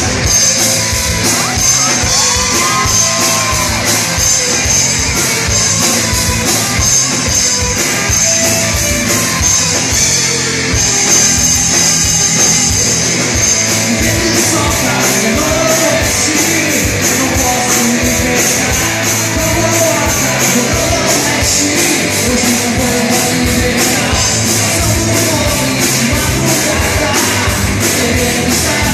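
Hard rock band playing live: a fast, steady drum beat with ringing cymbals under a dense wall of instruments.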